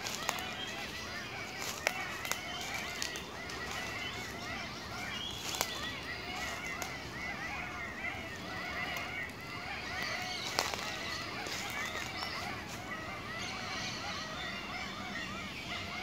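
A dense, continuous chorus of many birds calling at once, short rising-and-falling calls overlapping without a break. A few sharp clicks stand out.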